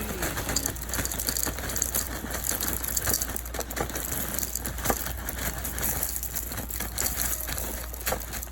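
Dry honey flakes cereal being poured into a bowl, a dense run of small crackles and rattles.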